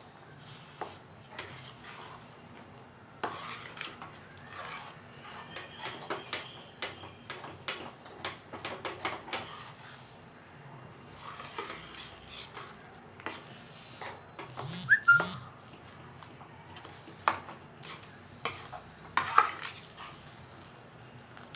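A flat metal spatula scraping and knocking against a pan in irregular strokes while stirring thick, oily urad dal kali dough as it cooks. There is a brief squeak about fifteen seconds in.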